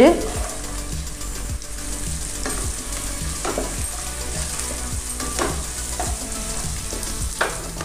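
Chopped onion sizzling in hot oil with grated ginger and garlic, stirred with a wooden spatula that scrapes across the pan in repeated strokes: onions sautéing until golden.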